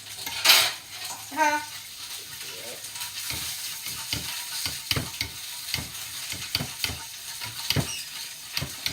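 Eggs sizzling in a hot frying pan while a spatula stirs and scrapes them, in irregular short strokes about twice a second from about three seconds in. A short louder burst of hiss comes about half a second in.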